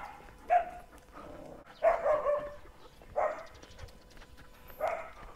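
A dog barking, several short separate barks spread over a few seconds, one of them a little longer near the middle.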